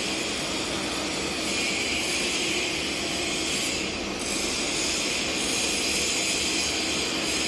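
Large electric chainsaw mill running with no log: a steady mechanical whir and hiss, dipping briefly about four seconds in.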